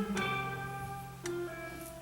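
Recorded music in a pause between sung lines: plucked guitar notes, one group near the start and another about a second in, each ringing out and fading.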